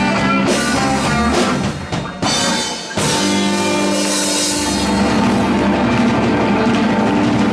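A live blues band with electric guitar and drum kit plays the ending of a slow blues. The sound drops back briefly about two seconds in. About a second later the band strikes a final chord and holds it ringing.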